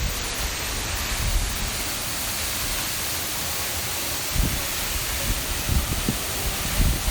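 Steady rush of falling or flowing water in a gorge, with a few brief low thumps about four and a half and six seconds in.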